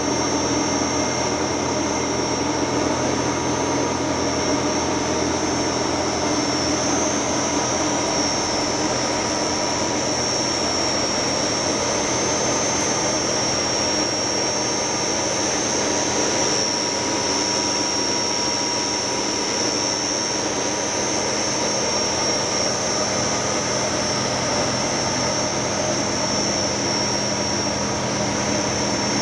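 Bolt thread-rolling machine running: a steady mechanical noise with a constant high whine and a fainter mid-pitched tone.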